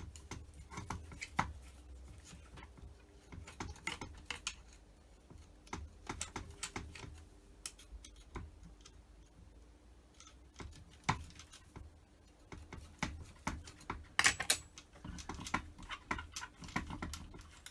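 Small metal carburettor parts and hand tools being handled on a workbench: irregular light clicks and clinks in scattered clusters as corroded bolts and pieces are taken out and set down.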